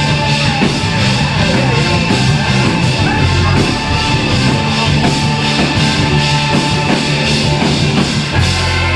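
A live rock band playing an instrumental passage with drum kit and guitars. About eight seconds in, the drumming stops and a low chord is held and rings on.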